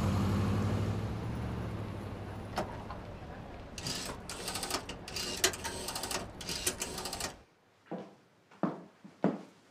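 A low rumble for the first few seconds, then an old rotary telephone being dialled: the dial clicks rapidly as it spins back, several times over. The dialling is followed by a few soft thuds.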